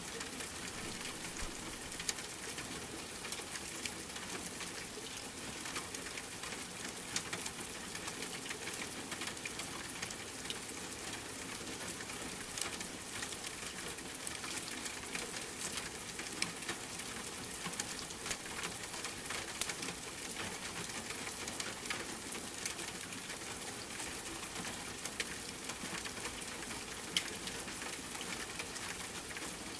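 Steady rain falling, mixed with the crackle of a wood fire: a constant hiss dotted with small sharp pops, a few louder ones standing out now and then.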